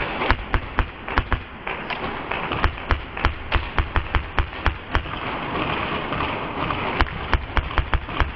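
Airsoft gunfire: sharp, irregular clicks and taps of shots and BB hits, two to four a second, pausing for about two seconds past the middle before starting again.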